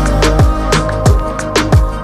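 Electronic background music with a steady beat of deep kick drums that drop quickly in pitch, over hi-hat ticks and held synth tones.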